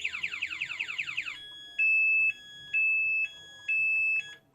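Motorcycle anti-theft alarm siren sounding. First comes a fast falling sweep, repeated about six times a second, then three long steady high beeps, each about half a second. The newly installed 2-way alarm is working.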